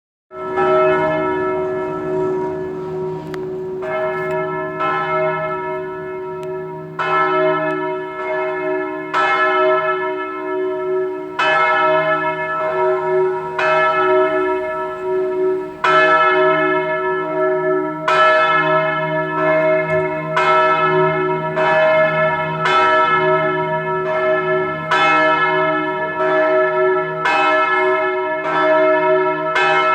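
The great church bell of St. Jakob, cast in 2001, ringing: its clapper strikes about every one to two seconds, and each strike rings on into the next. A deep hum runs steadily under the strikes.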